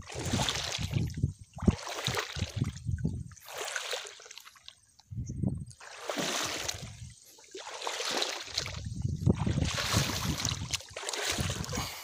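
Shallow pond water sloshing and splashing in repeated surges, one every second or two, as someone wades through it.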